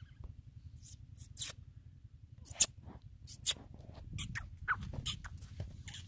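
Grey francolin at close range giving a dozen or so short, sharp squeaky notes, irregularly spaced, over a low wind rumble.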